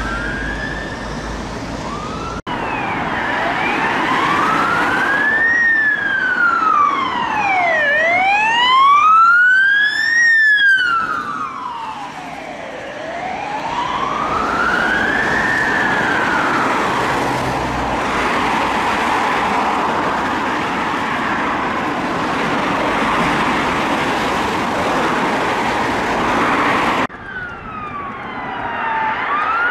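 Ambulance siren on a slow wail, rising and falling about once every five seconds over road traffic, then fading into the traffic noise. Brief snatches of other sirens come in at the start and near the end.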